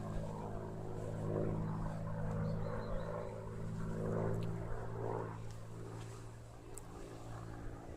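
Supermarine Spitfire's piston engine and propeller droning in flight at a steady pitch, swelling and ebbing, and growing fainter over the last few seconds as it flies away.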